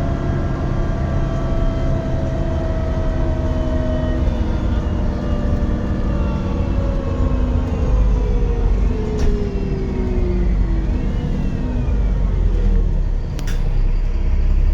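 Dennis Trident 2 double-decker bus under way, its engine rumbling and its loud turbo whistle and drivetrain whine falling slowly in pitch as the bus slows. A sharp click comes near the end.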